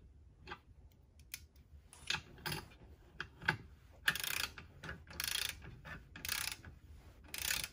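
Ratchet head of a Harbor Freight torque wrench clicking in short runs as it is swung back and forth, tightening the steel winch mounting bolts to 33 ft-lb. The runs come about once a second and grow longer in the second half.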